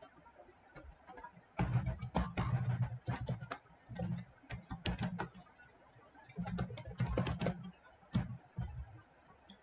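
Typing on a computer keyboard: quick runs of keystrokes in several bursts, starting about a second and a half in, after a few single clicks.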